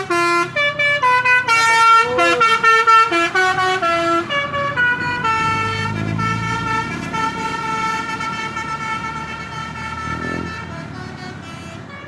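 Telolet multi-tone bus horn playing a quick melody of stepping notes, then holding one chord that slowly fades. An engine rumble swells under the chord about six seconds in as the vehicle passes.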